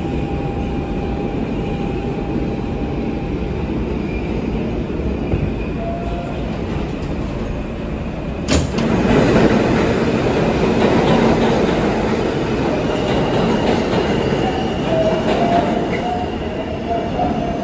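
R160B Siemens subway train running on the rails, a steady rumble. A sharp click comes about eight and a half seconds in, after which it runs louder, with thin wavering squeals from the wheels in the second half.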